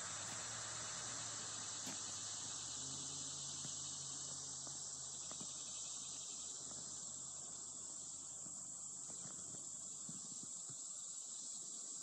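Steady high-pitched chorus of insects, with a couple of faint clicks.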